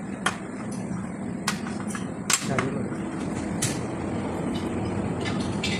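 Gas brazing torch flame burning with a steady rush while it heats an aluminium A/C pipe joint. About eight sharp clicks and taps are scattered through it.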